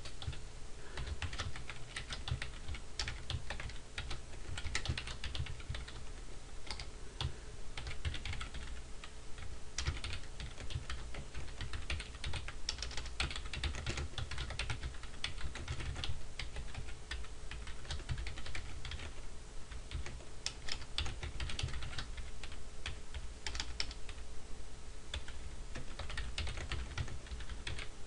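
Typing on a computer keyboard: keystrokes clicking in quick, irregular runs.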